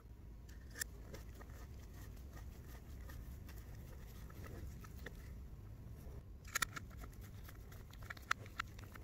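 Screwdriver tip clicking and scraping in the slot of a small screw as a steel blade is screwed onto a cast-iron tobacco cutter, with light metal taps. A sharp click comes just under a second in, a quick double click about two-thirds of the way through and another near the end, over a steady low rumble.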